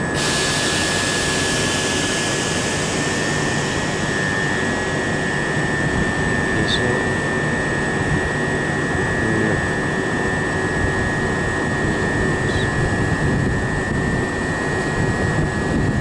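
Southern Class 377 Electrostar electric multiple unit standing at the platform with its onboard equipment running: a steady hum under a steady high-pitched whine. A hiss at the start fades away over the first few seconds.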